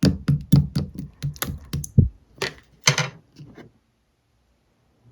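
Clear slime being squished, giving a quick run of about a dozen sharp clicking pops that space out and stop after roughly four seconds.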